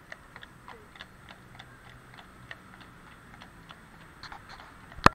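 Shod hooves of walking horses clip-clopping on asphalt: light, sharp clicks at about three a second. One much louder sharp knock comes at the very end.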